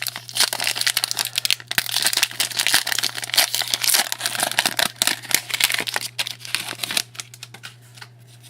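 Plastic-foil trading card pack wrapper being torn open and crinkled by hand, a dense crackle for about seven seconds that dies down near the end.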